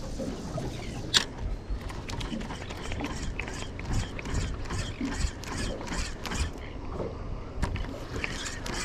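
Fishing reel being cranked: a run of mechanical clicks and gear noise, with one sharper click about a second in.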